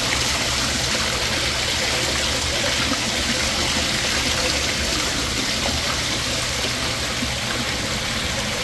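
Steady rush of running water, as from the circulating water of a live-fish tank.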